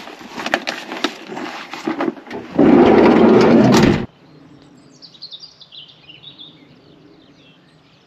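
A clatter of knocks and clicks, then a loud rush of noise for over a second that cuts off suddenly about four seconds in. After that, small birds chirp over a faint low steady hum.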